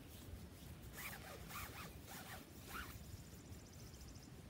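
Cord being pulled free and gathered by hand, giving four short, faint rasping zips as it slides.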